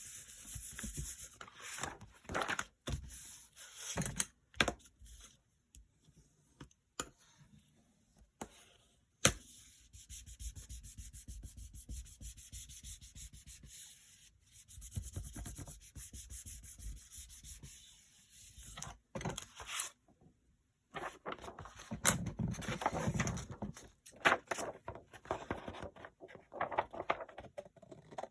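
Paper being rubbed by hand while glued papers are stuck into place, in stretches of a few seconds, with scattered taps and clicks of paper and tools being handled.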